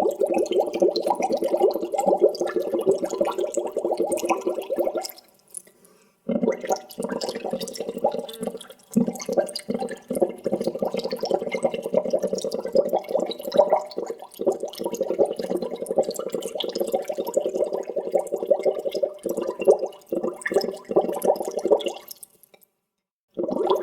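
Continuous bubbling of air through water, a dense stream of small gurgling pops, stopping briefly about five seconds in and again near the end.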